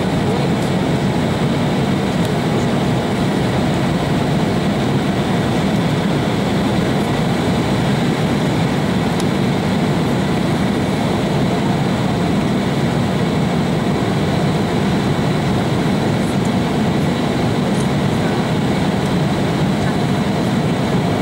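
Steady cabin noise of an Embraer 190 on final approach: an even rumble of its General Electric CF34-10E turbofan engines and the rush of air past the fuselage, heard inside the cabin from a seat over the wing.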